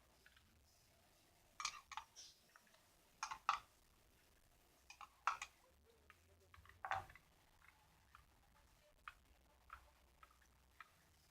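Spoon clicking and tapping against a bowl while slime is stirred: faint, irregular taps with a few louder clusters of knocks.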